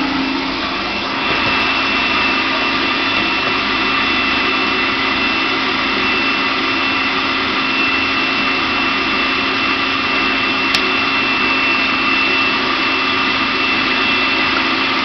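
Electric blender motor running steadily with a low hum and a high whine, mixing dog food and water into a thin slurry. One small click about eleven seconds in.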